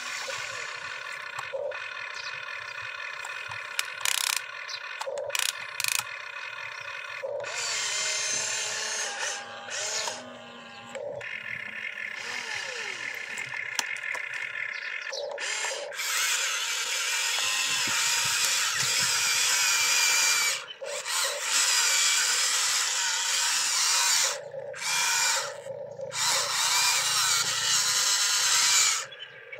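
Motors and gears of a model RC excavator whining as it digs, swings and lifts its boom, starting and stopping with each movement. The sound is louder and denser in the second half.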